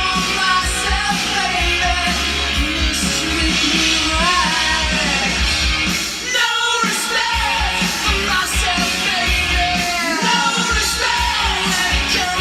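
Rock song with a singer playing from a vinyl record, over a steady drum and bass beat, with a short break in the instruments about six seconds in.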